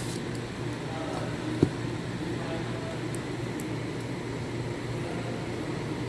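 Steady background hum with one sharp knock about one and a half seconds in, as the parts of a disassembled car AC compressor are handled on the bench.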